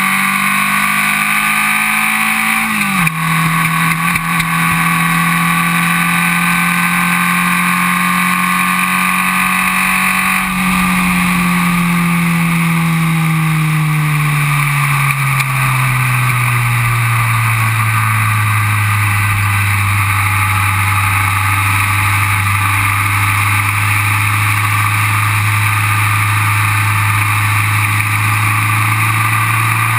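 Onboard sound of a Formula Vee's air-cooled 1200 cc Volkswagen flat-four engine at racing speed. The revs climb, then drop sharply at an upshift about three seconds in. About ten seconds in they begin to fall gradually over several seconds and then hold at a steady lower pitch. Wind rushes over the microphone throughout.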